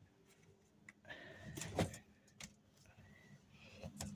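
A door being opened: light latch clicks and a short faint scraping squeak about a second in.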